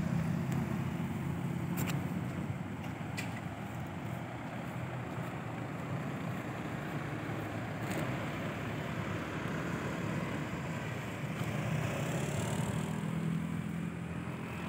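Steady outdoor background noise with a low motor hum that swells near the start and again near the end, and a few faint clicks.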